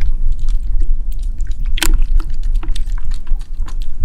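Water splashing and dripping in irregular short bursts, over a steady low rumble.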